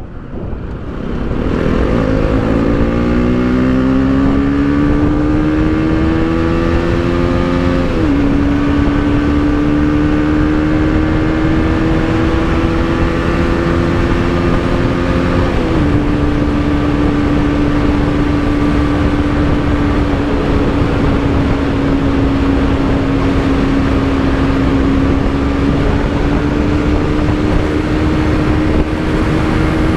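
Bajaj Pulsar NS200's single-cylinder engine accelerating through the gears on a ride. The pitch climbs for several seconds, drops at an upshift about eight seconds in and again at about sixteen, then holds fairly steady at cruising speed. A steady rushing noise runs underneath.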